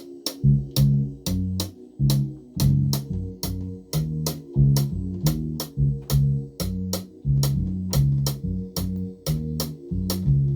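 Instrumental beat: a repeating bass line stepping between a few low notes, under sharp clicking percussion at a steady pulse of about three hits a second. It drops out briefly right at the start.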